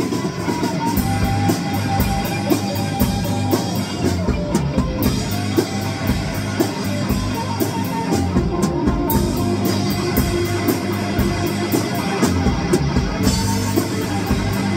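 Rock band playing an instrumental stretch, with electric guitar over a drum kit keeping a steady, fast beat.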